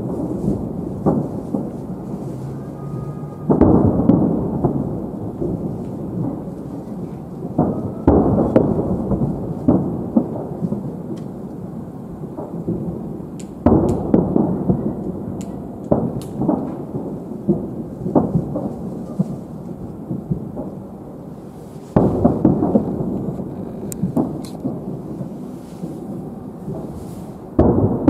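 Distant aerial fireworks shells bursting in a salute display. A heavy boom comes every few seconds, each rolling on into a long rumbling echo, with faint crackles between.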